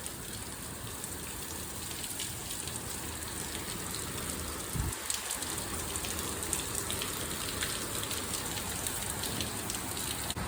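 Steady rain falling and spattering on surfaces during a thunderstorm, with a brief low thump about halfway through.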